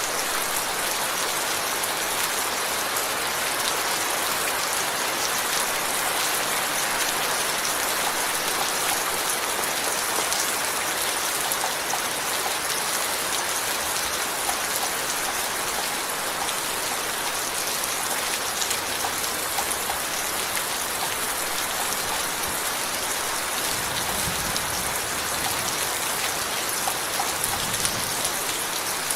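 Steady rain falling, an even hiss made of many fine drop taps, with no change in intensity.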